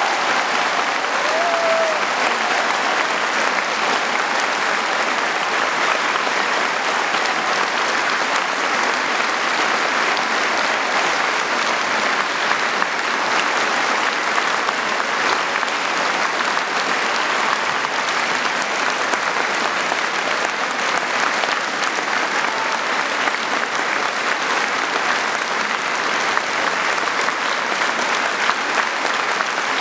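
A large concert audience and the orchestra on stage applauding, a dense, steady clapping that holds at one level throughout.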